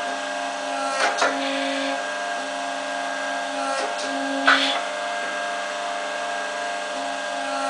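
Steady machine hum from an electric forging furnace, holding several fixed tones, with a low tone cutting in and out every second or so. Short sharp knocks come about a second in, twice close together, and again about halfway through.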